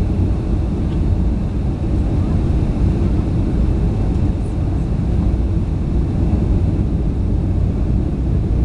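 Jet airliner cabin noise heard from a passenger seat: a steady, loud low rumble of engines and rushing air with no distinct events.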